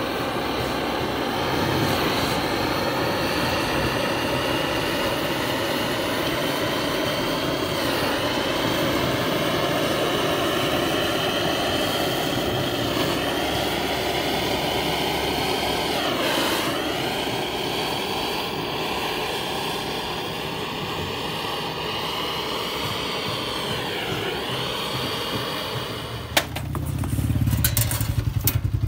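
A machine motor runs steadily with a whine while water is dried out of a radiator. Its pitch dips briefly about four times. Near the end the whine stops and gives way to a few clicks and a low rumble.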